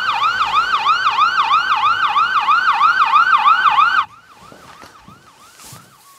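Emergency-vehicle siren on a fast yelp, its pitch sweeping up and down about four times a second. It cuts off abruptly about four seconds in, leaving only a faint trace of the siren and small rustling sounds.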